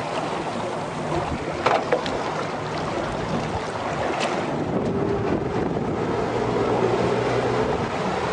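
Wind rushing across the microphone over the steady hum of a boat engine, with a couple of brief knocks.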